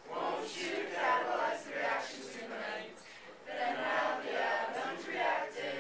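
A mixed group of teenage voices singing together in unison, in phrases with short breaks between them.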